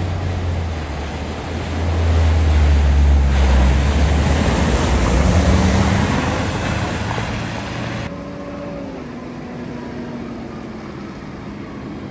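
A vehicle driving through deep water at a ford: the engine runs with a low hum under a loud rush of splashing water. The rush cuts off abruptly about eight seconds in, leaving a quieter engine sound.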